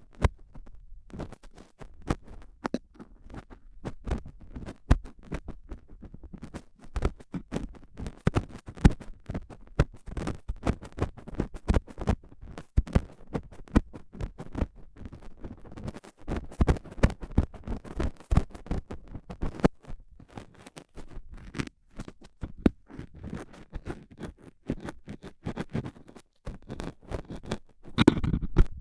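Stainless steel dental tools scraping and scratching inside an ear, heard up close: dense, irregular scratches and clicks, with a louder cluster near the end.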